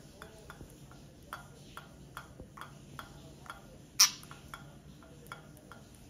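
Budgie pecking at a plastic ping-pong ball, a run of light beak taps at about two or three a second, with one much louder sharp knock about four seconds in.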